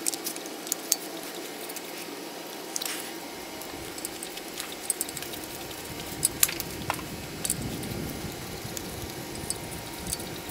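Scattered light clicks and clinks as hydraulic roller lifters and their plastic lifter trays are pushed by hand into the lifter bores of an LS V8 engine block.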